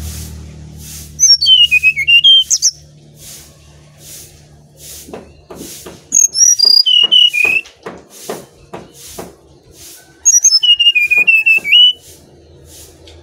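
Brown-chested jungle flycatcher singing three clear whistled phrases, each a run of notes falling from high to mid pitch and flicking up at the end, with pauses between them. A faint pulsing about twice a second runs underneath, with a few soft clicks between the phrases.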